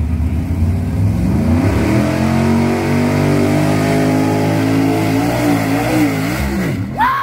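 Mud bog pickup truck's engine revving hard as it charges through the mud pit, its pitch climbing over the first couple of seconds and then held high. Near the end the revs dip and swing as the truck goes airborne, followed by a brief sharp high rising-and-falling sound.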